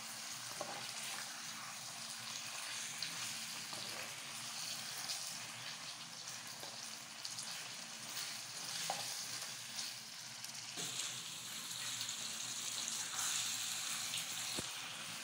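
Beef pieces sizzling steadily as they fry in a thick tomato sauce in a metal pan, with a few light knocks and scrapes of a wooden spoon stirring them.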